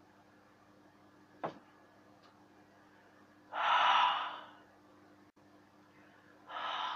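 A man breathing out hard through a wide-open mouth: a loud breathy 'haah' about three and a half seconds in that lasts about a second, and a second, weaker one near the end. A faint click comes about one and a half seconds in.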